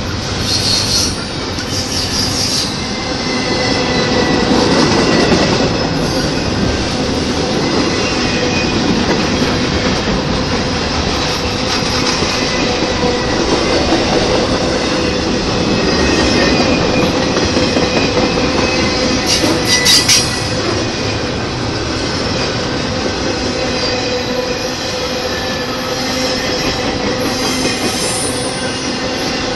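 Intermodal freight train cars rolling past: a steady rumble of steel wheels on rail, with thin, steady squealing tones from the wheels. A few sharp clanks stand out, the loudest about two-thirds of the way through.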